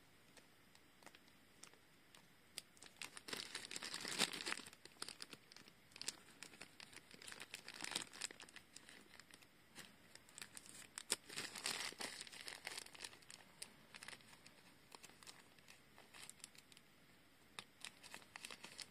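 Scissors snipping through a foil blind bag, the foil crinkling as it is cut open. It comes as faint, scattered bursts of crinkles and small snips with short pauses between them.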